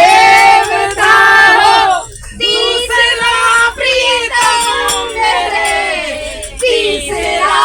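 Women singing a Hindu devotional song (bhajan) together, with long held, wavering notes and a short break about two seconds in.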